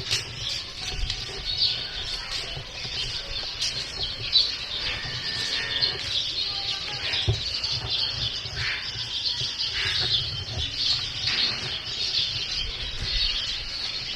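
Many small birds chirping continuously over one another, with scattered short clicks.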